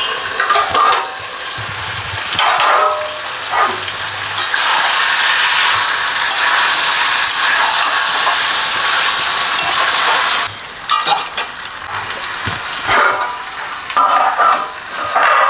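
Mutton curry frying in a steel kadai, stirred with a long metal spatula: short scrapes and clinks of the spatula against the pan, and a steady sizzle for several seconds in the middle that drops away abruptly.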